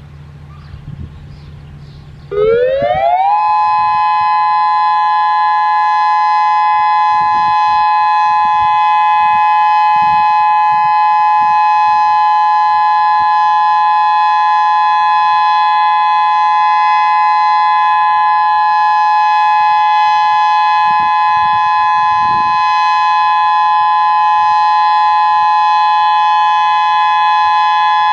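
Federal Signal Modulator 6024B electronic outdoor warning siren, driven through 24 100-watt speaker drivers, starting its Full Alert signal about two seconds in. It is a quick rising glide into a steady, very loud two-note tone that then holds level.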